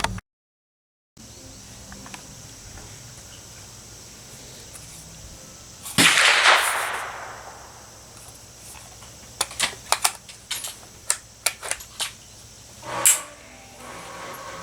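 A single shot from an M1A .308 semi-automatic rifle about six seconds in, the loudest sound, with a long echoing tail. It is followed by a run of about ten short, quieter sharp cracks, then a shorter, softer bang near the end.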